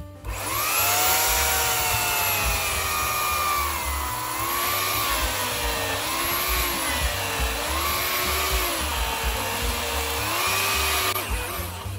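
Corded electric chainsaw (Oregon) cutting into a log. Its motor whine wavers down and up in pitch as the bar bites into the wood, over the rasp of the chain in the cut.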